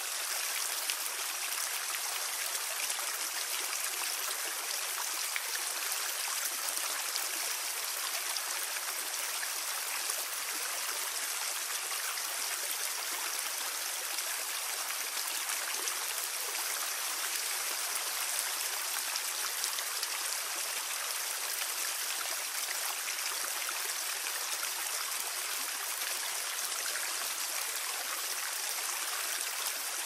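Small garden waterfall spilling into a koi pond: a steady, even splashing rush of falling water, bright and hissy with little low rumble.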